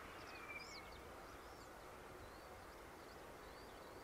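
Faint chirps of small birds repeating several times over a faint, steady hiss.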